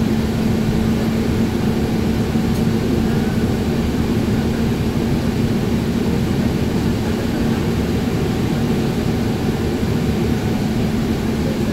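City transit bus cruising, heard from inside the cabin: a steady low drone of engine and road noise with a constant hum.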